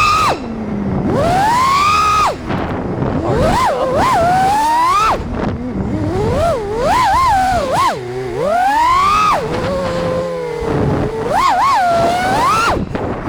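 5-inch FPV freestyle quadcopter's brushless motors whining, the pitch swooping up and down sharply and often as the throttle is punched and chopped through tricks and dives.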